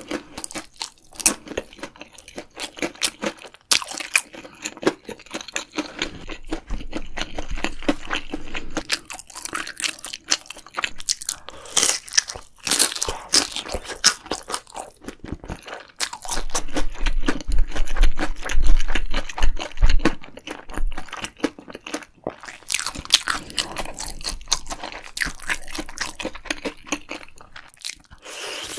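Close-miked eating: crunchy bites and chewing, a dense run of irregular crackles and crunches, with some deep rumble in places.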